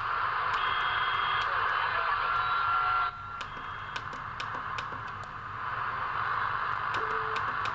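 Pearce-Simpson Super Cheetah MkIII CB radio receiving on lower sideband: steady static hiss with a few faint whistles. The hiss drops suddenly about three seconds in as the channels are stepped down, and light clicks come from the channel switch.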